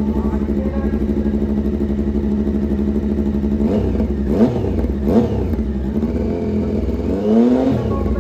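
Racing motorcycle engine warming up on paddock stands: a steady idle, then the throttle is blipped three times in the second half, the revs rising and falling each time.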